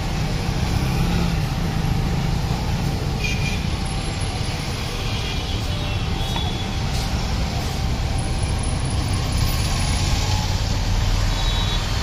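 Steady low background rumble with no clear events.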